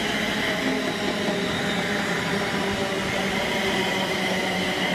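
London Northwestern Railway Class 350 electric multiple unit passing close by: a steady rumble of wheels on rail, with several steady tones of motor whine over it.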